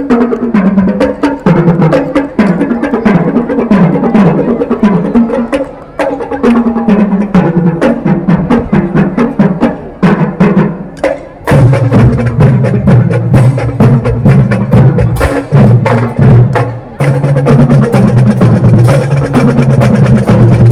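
Marching band playing: rapid drum strokes and sharp stick clicks over a melody that moves up and down. About eleven seconds in, the music gets louder and fuller, with strong sustained low notes under the beat.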